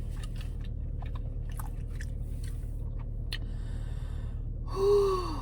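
Close-miked chewing of a hot dog, with small wet mouth clicks. Near the end comes a brief vocal sound that falls in pitch.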